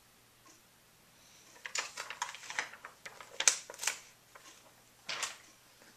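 Thin plastic protective sheet rustling and crackling as it is pulled off a new laptop LCD panel: a run of crackles for about two seconds starting a second and a half in, then one more short burst near the end.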